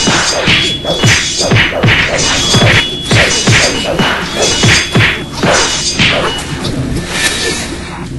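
Fight sound effects: a rapid run of whooshes and hard whacks, about two or three a second, for energy blasts being thrown. They thin out near the end.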